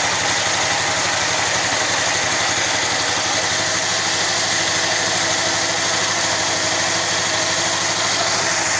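Small single-cylinder engine driving a portable cable winch, running steadily at an even speed.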